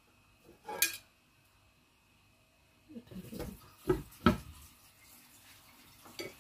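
Cookware clatter on a Scoville non-stick frying pan. There is a sharp knock of the spatula just under a second in. About four seconds in, a glass pan lid is set down onto the pan with two quick knocks.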